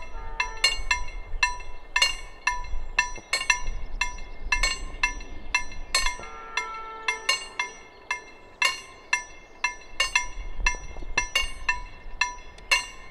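KLD-40 level-crossing warning bells ringing: a quick run of metallic strikes, about two to three a second and not quite regular, each with a bright ringing tone. The signal that a train is approaching the crossing.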